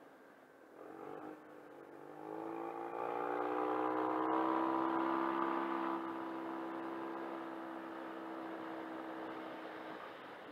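Yamaha TMAX 500 maxiscooter's parallel-twin engine accelerating. The engine note rises for about three seconds, holds at a steady pitch for several seconds, then drops away near the end, over wind noise.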